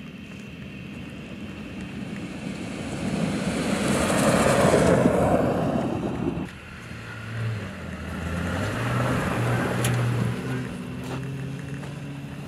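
Jeep Gladiator Mojave pickup driven fast over desert dirt, approaching and passing with a swelling rush of tyre and wind noise that is loudest about four to five seconds in. After a sudden cut about six seconds in, its engine is heard running with a low drone that swells twice as it drives off over sand.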